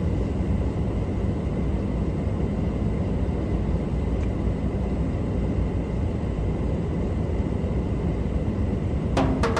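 Steady low rumble of a car driving, the road and engine noise of an onboard recording. Near the end, music with sharp percussive strikes comes in over it.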